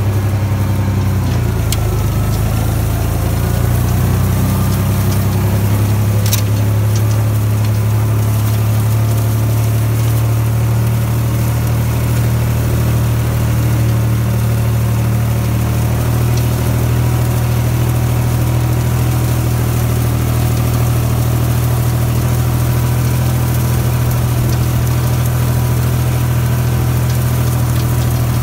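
International Harvester 485 tractor's diesel engine running at a steady speed under load, driving a Hesston 3710 hay tedder through its PTO shaft.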